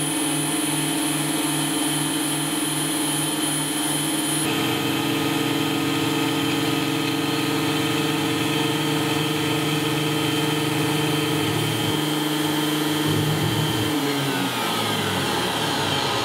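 Tabletop CNC mill (KitMill RZ300/420) milling acrylic: a steady spindle whine over a hiss of air from the blower nozzle, with the axis drive motors humming in a pulsing rhythm of about three beats a second. The pattern shifts about four seconds in, and near the end the motor tones step down in pitch as the tool moves.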